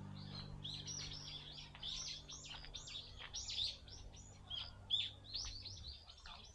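Many small birds chirping and twittering at once in a dense, continuous chatter of short high calls. A steady low hum runs underneath and stops near the end.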